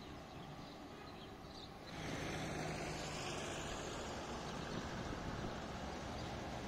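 Street background that is quiet at first, with faint high chirps, then about two seconds in jumps louder to a steady rumble of a tram approaching along its track, mixed with road traffic, with a low steady hum and a few falling high glides.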